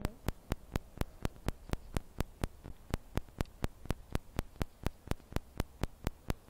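A steady train of sharp, evenly spaced clicks, about four a second, over a low hum.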